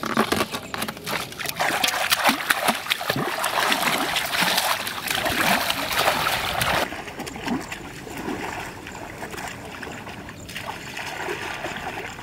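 Hands splashing and churning shallow, muddy floodwater, a dense run of splashes that drops suddenly to softer sloshing a little past halfway.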